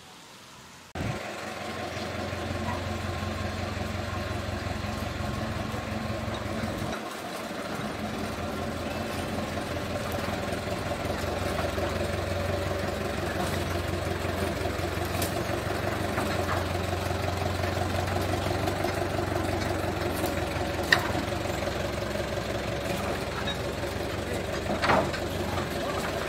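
An engine idling steadily with a low hum, starting abruptly about a second in. A sharp click comes about two-thirds of the way through and a short knock near the end.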